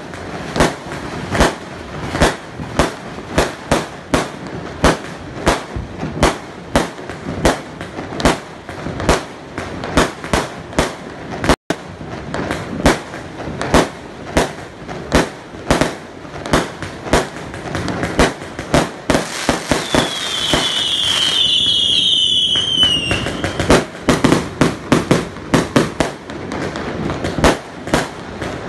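Aerial fireworks going off in a rapid, steady string of sharp bangs, about three a second. About two-thirds of the way through, a loud hissing rush with several falling whistles runs for about three seconds, and then the bangs carry on.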